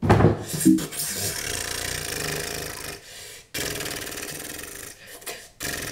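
A sudden knock as a toe slams into furniture, with a second hit a moment later, followed by harsh rasping noise that drops out briefly twice.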